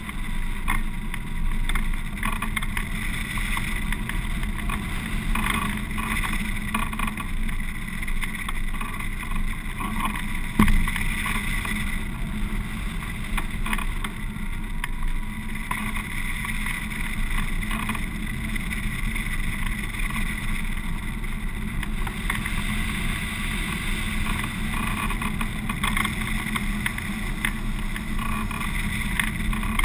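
Wind rushing over a camera microphone mounted on a hang glider in flight: a steady buffeting noise, with one brief louder knock about ten and a half seconds in.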